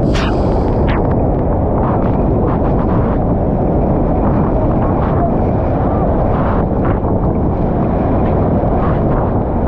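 Steady roar of Niagara's Bridal Veil Falls crashing over the rocks below the walkway, with spray and wind hitting the microphone and scattered droplet ticks on it.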